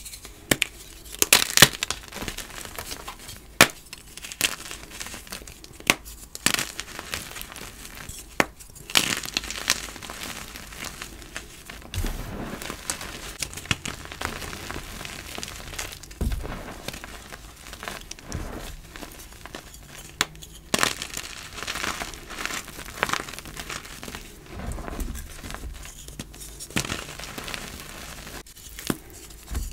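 Gym chalk chunks being crushed and crumbled by hand in loose chalk powder: dry crunching with irregular sharp cracks as pieces snap, the loudest in the first few seconds, and crumbly crackling in between.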